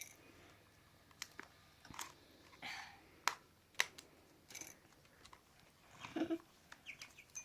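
Faint, scattered clicks and short crackles of plastic being handled as stickers are peeled off a toy surprise ball.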